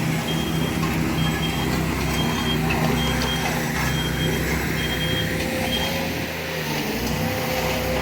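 Road roller's engine running with its reversing alarm beeping, a high beep about once a second that stops about six seconds in.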